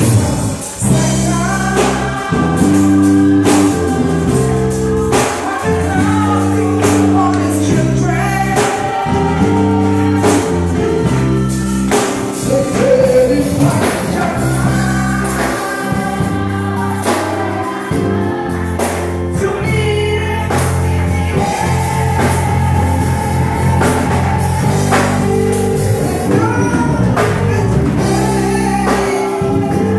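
Live gospel praise music: amplified singing over electric keyboard and bass guitar, with the congregation singing along. Sharp percussive hits from hand claps and tambourine run through it at a steady beat.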